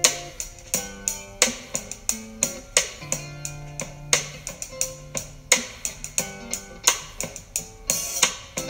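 Background music: strummed guitar over a steady drum beat.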